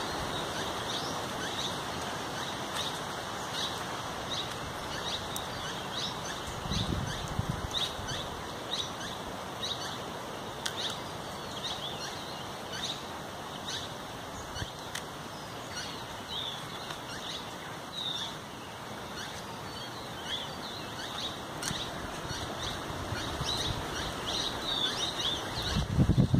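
Small birds chirping over and over in woodland, many short quick calls, over a steady wind-like hiss. A brief low rustle or thump comes about seven seconds in and another near the end.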